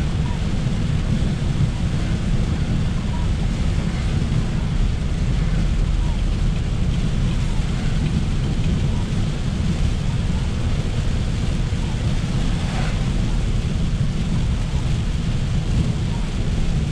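Steady road noise inside a car driving through heavy rain: a low rumble of tyres on the wet road, with rain on the car.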